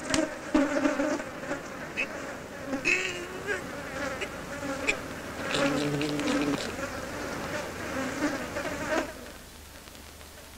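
Cartoon insect buzzing sound effects: a droning buzz that wavers up and down in pitch, with a few sharp clicks, cutting off about nine seconds in.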